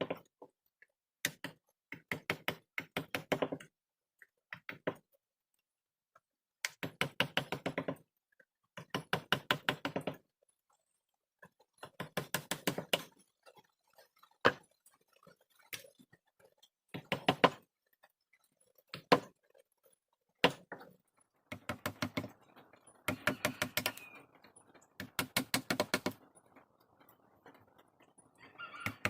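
Mallet tapping a wood-carving chisel into hardwood in quick runs of light strikes, about ten a second. The runs last up to a couple of seconds each, with short pauses between them.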